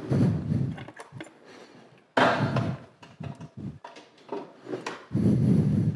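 Kawasaki KLR650 dual-sport motorcycle's electric starter cranking in two short bursts of under a second each, the single-cylinder engine not catching yet, with clicks and knocks between them.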